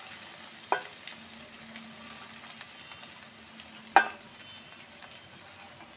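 Mustard oil and spices sizzling steadily in an iron kadhai as boiled, chopped radish and radish leaves are tipped in. Two sharp knocks come through, one about a second in and a louder one about four seconds in.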